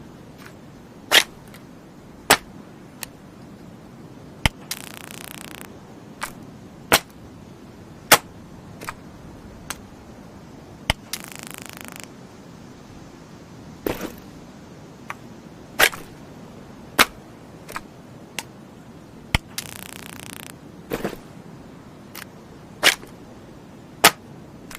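Stun gun going off: loud sharp electric snaps at irregular intervals, and three crackling bursts of arcing about a second long.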